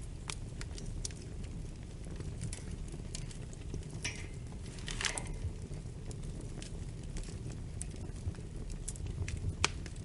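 Wood fire in a fireplace crackling: scattered sharp pops over a steady low rumble of flames, with a brief hiss about four to five seconds in.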